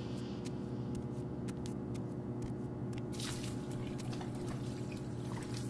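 Faint scattered clicks, then water running from a tap into a washbasin from about three seconds in.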